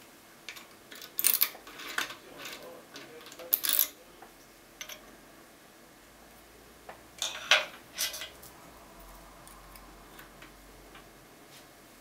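Metal clicks and clinks from a key and lockpicking tools being handled at a Bricard Astral radial pin cylinder, in two clusters: several over the first few seconds and a sharper group about seven to eight seconds in.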